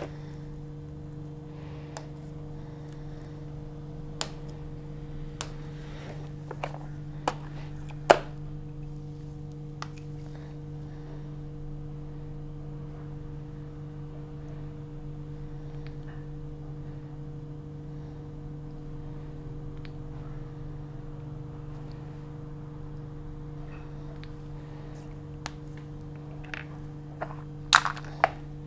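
Occasional sharp clicks and light plastic knocks of micropipetting work: a pipette and small plastic PCR tubes being handled in a rack. The loudest click comes about eight seconds in, with a quick cluster near the end, all over a steady low hum.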